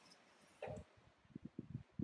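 Hanging fabric sheets being swung and pushed with a pole: a faint swish just over half a second in, then a run of soft, low flaps.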